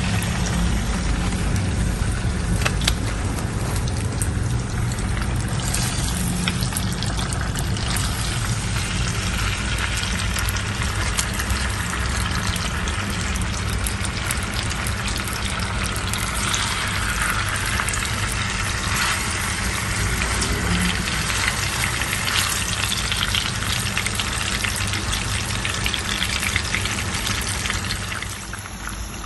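Marinated malai tikka chicken leg pieces sizzling and crackling in hot oil in a nonstick frying pan, with a low steady hum underneath. The sizzle drops a little near the end.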